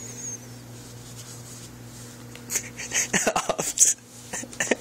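Collapsible fabric litter-box tent rustling and crinkling under a cat scrambling onto it. It comes as a flurry of scratchy strokes a couple of seconds in, then a few more near the end, over a low steady hum.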